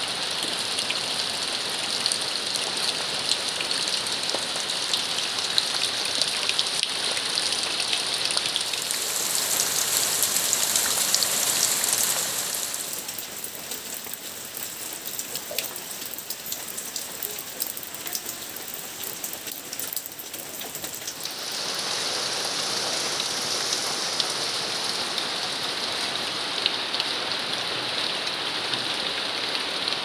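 Monsoon rain falling steadily, splashing into muddy puddles and onto leaves. The rain turns softer from about 12 to 21 seconds in, then fuller again.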